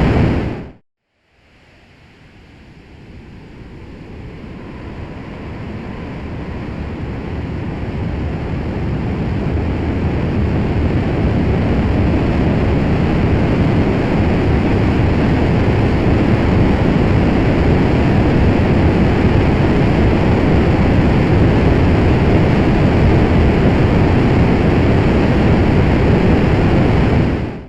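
Rocket engine ignition sound effect: a steady low rush of noise cuts off about a second in. After a brief gap the engine fires again and builds over about ten seconds to a steady, deep roar, which stops abruptly near the end.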